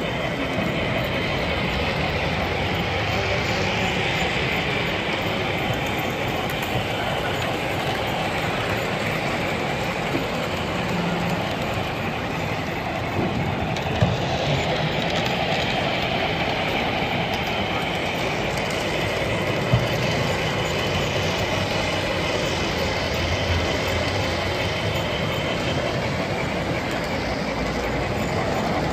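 HO-scale model train running along the layout track with a steady rolling noise, with two sharp clicks, about fourteen and twenty seconds in.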